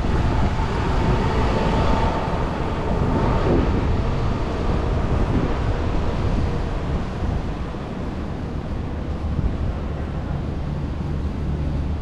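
Wind buffeting the microphone: a dense, low rumbling rush, a little louder in the first half.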